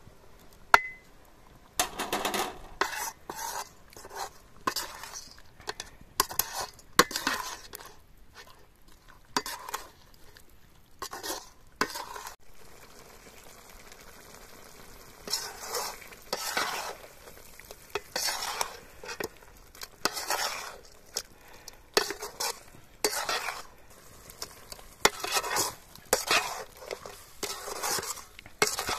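A perforated metal ladle stirring and scraping a thick curry around a metal kadai, in repeated short scraping strokes with a pause about halfway through. A single sharp metal clink sounds about a second in.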